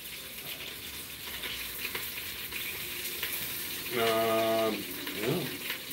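Food sizzling in a pan: a steady hiss. About four seconds in, a person makes a held, level "hmm" while thinking, the loudest moment.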